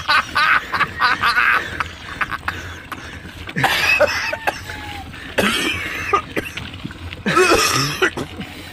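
A rider's voice in four short bursts of coughing and wordless vocal sounds, over a steady low rumble of wind and road noise on the microphone.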